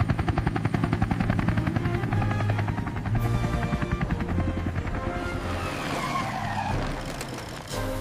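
Helicopter rotor sound effect: a fast, even chop of the blades that fades away after about five seconds, over background music.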